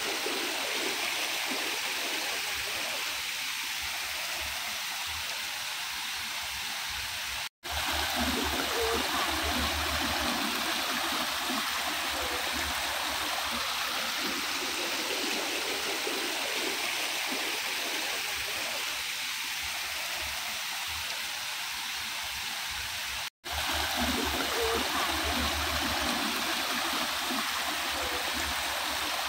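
Shallow stream running and splashing over mossy rocks in small cascades, a steady rush of water. It cuts out for an instant twice, about 7.5 and 23 seconds in.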